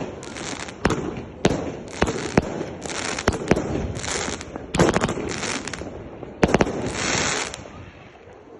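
A compound firework cake firing its shots: a rapid, irregular string of sharp bangs, many with a short hissing crackle between them. The shots thin out and die away near the end.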